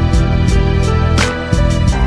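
Background music with held notes and a steady beat.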